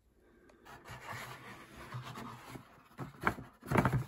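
Handling noise: the hard plastic body of the digital scales rubbing and scraping against their moulded cardboard packaging tray as they are gripped and lifted out, with two louder bumps near the end.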